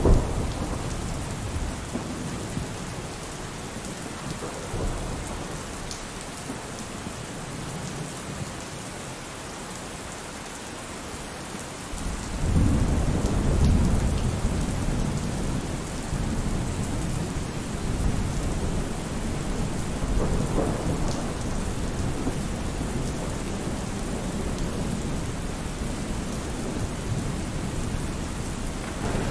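Steady rain with rumbling thunder; a deep rumble swells about twelve seconds in and rolls on.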